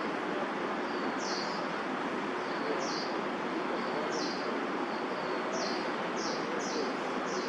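A small bird calling repeatedly: short, high, rising chirps, often a faint note followed by a louder one, about once a second, over a steady hiss of city-park background noise.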